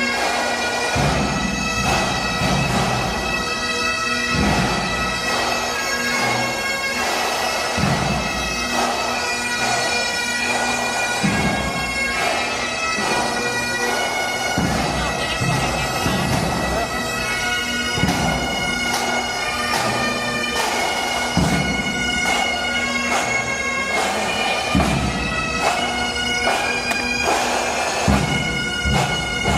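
Bagpipes playing a slow tune over steady drones, with low thuds underneath.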